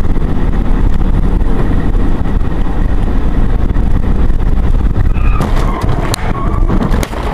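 Car on the move: a steady, loud low rumble of road and engine noise, with a few sharp clicks in the last two seconds.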